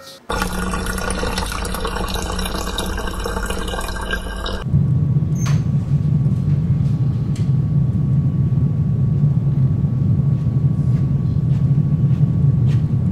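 Rushing water, hissy and full for the first four and a half seconds, then settling into a steadier, lower rush with a faint thin tone through it.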